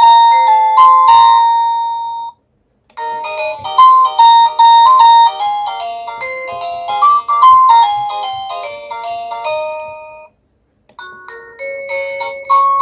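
Cacazi HYA10 wireless doorbell's receiver playing its electronic ringtone melodies: one tune ends about two seconds in, a second quick melody plays for about seven seconds, and a third begins near the end.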